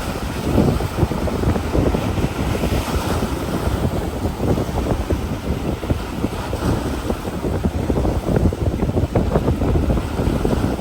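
Strong wind buffeting the microphone: a continuous rumbling, flapping noise that swells and fades with the gusts.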